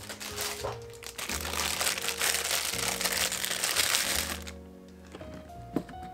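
A clear plastic packaging bag crinkling as mini plastic squeeze bottles are pulled out of it, from about a second in to about four and a half seconds in, over background music.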